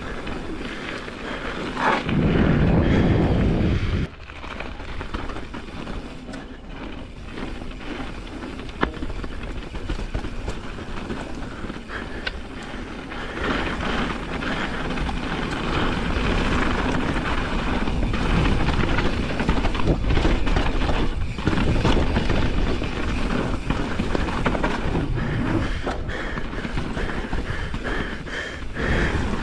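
Mountain bike riding down a dirt singletrack, heard from a chin-mounted action camera: tyres rolling over the trail, the bike rattling with scattered knocks, and wind rushing over the microphone, with a heavy wind buffet about two to four seconds in.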